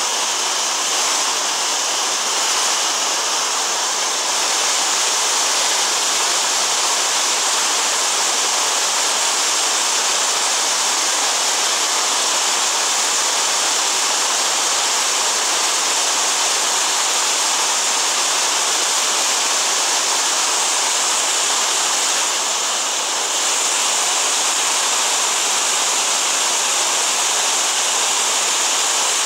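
Fast mountain creek rushing over boulders: a loud, steady whitewater rush.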